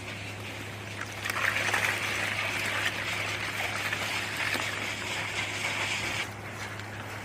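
Steady low machine hum, with a rushing hiss that comes in about a second in and cuts off abruptly near the end.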